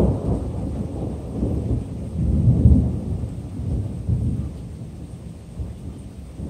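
Thunder: a sharp crack at the start, then a low rolling rumble that swells a couple of seconds in and dies away.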